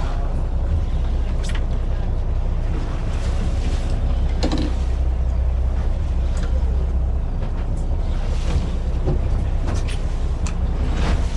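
Fishing boat at sea: a low, steady rumble throughout, with a few short knocks and clicks scattered through it.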